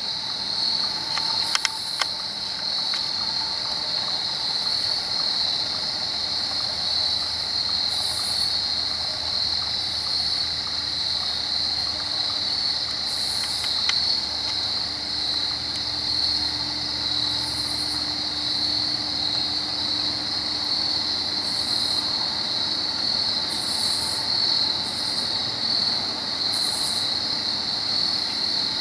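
Crickets singing in a steady, unbroken high trill, with a few light handling clicks in the first couple of seconds and a faint low drone in the middle.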